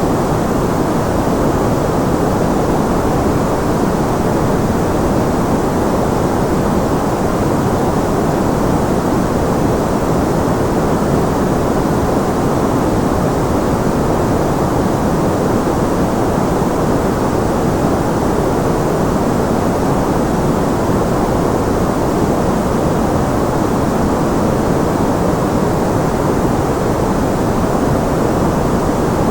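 Steady, unchanging white noise for tinnitus masking. Most of its energy sits low down, so it sounds like an even, deep rush with a fainter hiss above it.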